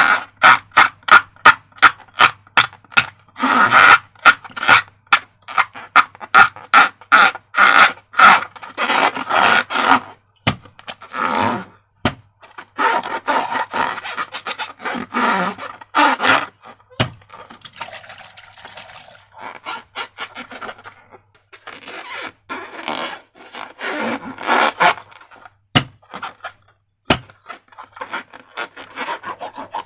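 Slime being squished and worked by hand: rapid sticky clicks, about three a second, over the first ten seconds, then irregular wet squelching smears.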